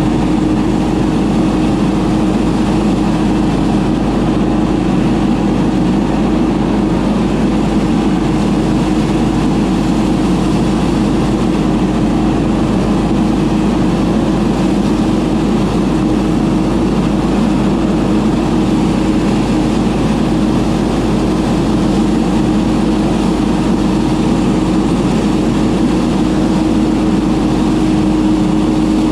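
Ferris FB2000 Hurricane stand-on debris blower running steadily under way, its Briggs & Stratton Vanguard engine and fan making a constant hum with a rush of air.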